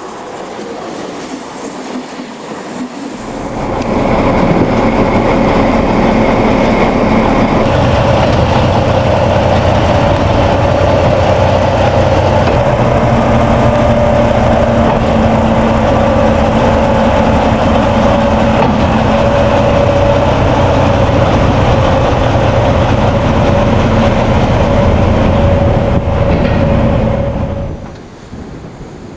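A train running on rails: a loud, steady rumble with a constant held tone. It swells up about four seconds in and drops off suddenly near the end.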